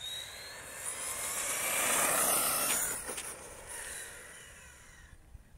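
Brushless electric RC truggy (HSP Wolverine with a stock 3300 kV motor) whining as it speeds up, rising in pitch, with tyre noise on asphalt. It is loudest about two seconds in as it passes, then fades away near the end.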